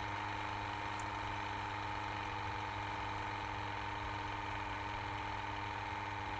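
Small gas-sampling pump of a BW gas-detector calibration dock running steadily as it purges the lines with fresh air between gas tests. It makes an even hum with a high whine, and there is a faint tick about a second in.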